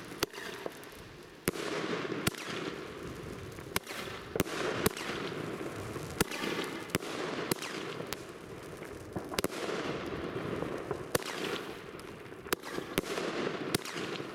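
Blackboxx "Nymphis" 30 mm firework battery firing: sharp bangs of shots and bursts at uneven intervals, about one every half second to a second, over a continuous hiss.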